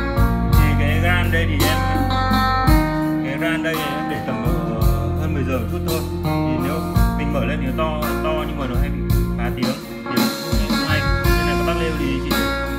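Recorded guitar-led music with a heavy bass line and regular drum hits, played back through the Yamaha MG16XU mixer and its sound system.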